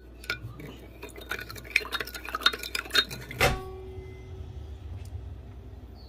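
A metal spoon stirring sugar and water in a Pyrex glass measuring cup, clinking rapidly against the glass, ending with one louder clink that rings briefly about three and a half seconds in.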